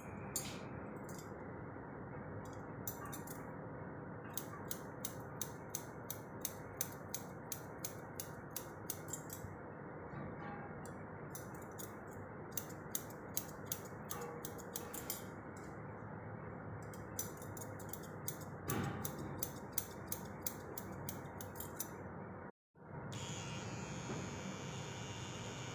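Barber's scissors snipping hair in quick runs of sharp snips. Near the end, an electric hair trimmer buzzes steadily as it trims the beard.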